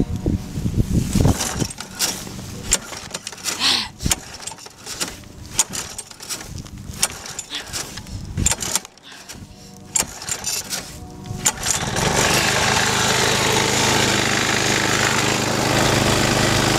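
Go-kart's lawn mower engine running faintly under irregular knocks and clicks of the handheld camera. About twelve seconds in, the engine becomes loud and steady as the kart is driven.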